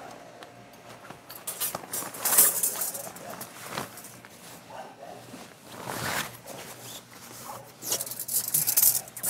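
Rooftop tent fabric rustling and swishing in irregular bursts as it is pushed and tucked in by hand while the hard-top tent is packed down.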